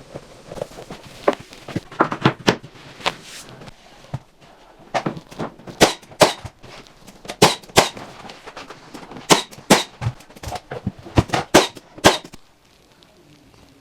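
Nails being driven into baseboard trim: a run of sharp cracks, irregularly spaced and often in quick pairs, that stops about twelve seconds in.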